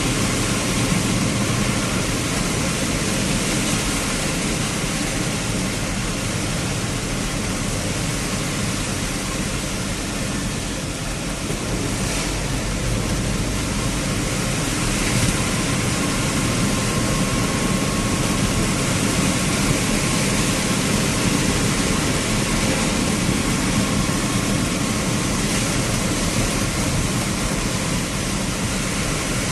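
Steady noise of a vehicle travelling in heavy rain: engine and road noise mixed with rain and wind.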